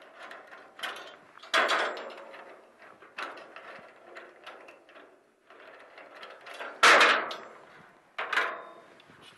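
Metal clanks and rattles as the original steel locking rod is worked free of a sheet-metal garage door's lock box and taken off. Several separate clatters ring briefly, and the loudest comes about seven seconds in.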